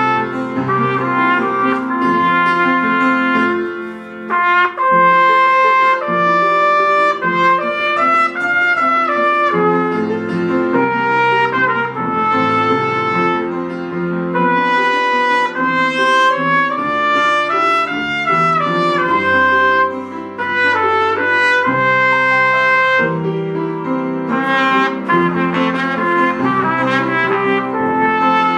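Solo trumpet playing a melody in held notes, with upright piano accompaniment, pausing briefly twice between phrases.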